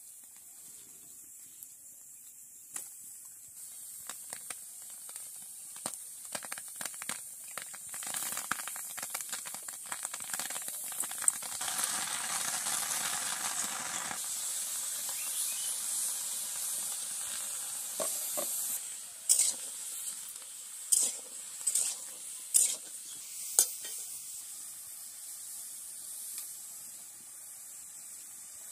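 Chopped vegetables sizzling as they fry in a kadai over a small wood-and-dung fire, a steady hiss that swells louder for a few seconds partway through. Later come four or five sharp knocks.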